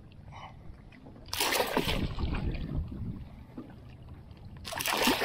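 A hooked snook thrashing at the surface beside the boat, held by the jaw: two loud splashes, one about a second in and one near the end.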